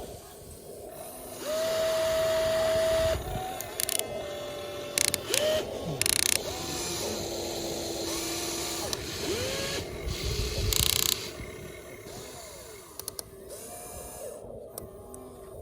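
Small electric gear motors of a toy RC excavator whining in short runs that start and stop, the pitch sliding up and down as the load changes, with a few sharp clicks.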